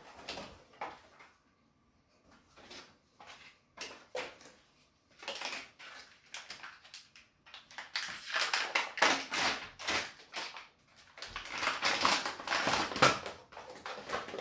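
A clear plastic bag crinkling and crackling as a 3D-printer filament spool is worked out of it by hand, with a few light clicks at first, then in bursts from about five seconds in that get denser and louder in the second half.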